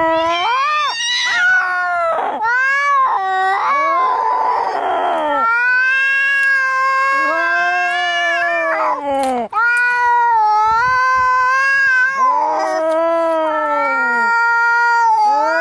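Angry cats caterwauling in a fight: long, drawn-out yowls that rise and fall in pitch, sometimes overlapping. About four seconds in comes a hiss.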